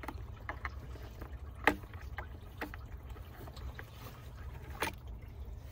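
A few scattered clicks and clinks of a hand tool working on engine-bay fittings, the sharpest about a second and a half in, over a steady low rumble.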